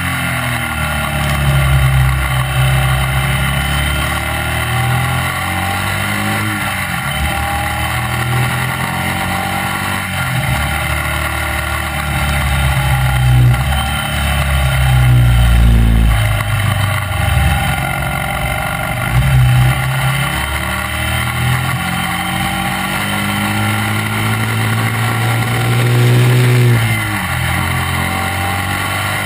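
Classic racing sidecar outfit's engine pulling hard at racing speed, its pitch climbing through each gear and dropping back at every upshift, several times over, over a steady rush of wind noise.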